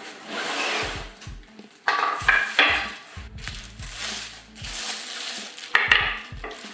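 Plastic wrapping crinkling and rustling as wrapped wooden tripod legs are handled and laid on a wooden floor, with sharp knocks about two seconds in and again near the end.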